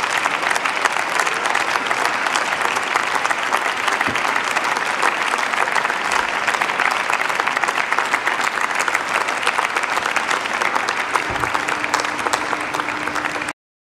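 Members of parliament applauding, a dense steady clapping from many hands in a large chamber, which cuts off abruptly near the end.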